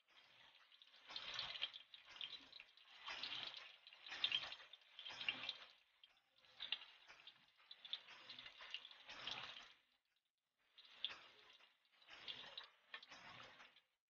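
Tofu slices sizzling in hot oil in an aluminium wok, in repeated swells of about one a second, with a short lull near the end.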